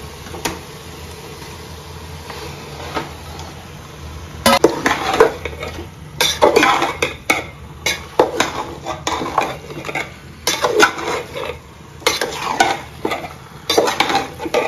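Marinated chicken sizzling quietly in hot masala in an aluminium pot, then from about four seconds in a flat spatula stirring and scraping hard against the pot in quick, irregular strokes as the chicken is sautéed in the spices.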